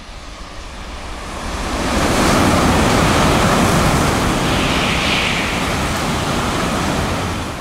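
N700-series Shinkansen passing through a station at very high speed without stopping: a loud rush of air and wheel-on-rail noise that builds over the first two seconds and holds. A brief higher hiss comes about five seconds in, and the rush fades near the end as the train clears.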